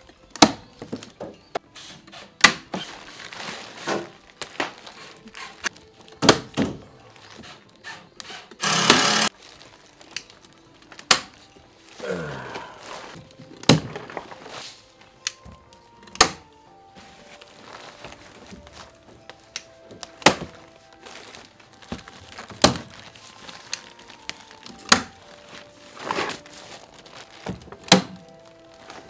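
Irregular sharp knocks and snaps, about one every second or two, from work sealing gaps in an old wooden house with plastic sheeting, with a loud ripping noise about nine seconds in. Quiet background music plays underneath.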